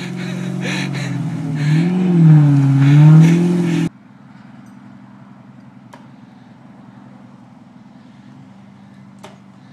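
V8 engine of a Unimog working under load as it drags brush on a line, its pitch rising and falling as it is revved. About four seconds in it cuts off abruptly to a much quieter, steady engine running in the background.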